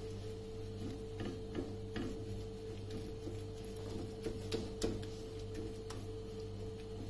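Silicone spatula mixing a thick spice paste in a cut-glass bowl: irregular soft clicks and scrapes against the glass, a few sharper ticks about four to five seconds in, over a steady low hum.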